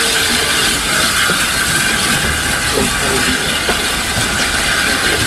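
Steady running noise and hiss of a steam-hauled passenger train, heard from an open carriage window, with tank engine 71515 working at the head.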